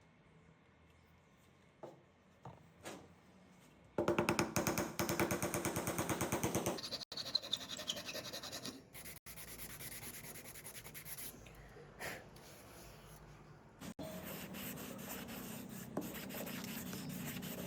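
Woodworking hand-tool sounds: a few light taps, then about four seconds in a loud run of rapid rubbing and scraping strokes on wood, followed by steadier scraping and rubbing.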